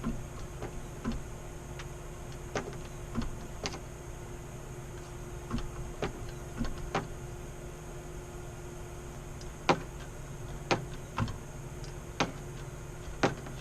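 Irregular metallic clicks and taps of an Allen key working the spring-tension screw of a monitor mount arm, over a steady hum.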